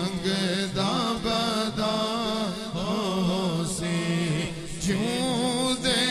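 A male voice singing a naat in long, ornamented, wavering melodic lines, without spoken words, over a steady low sustained drone.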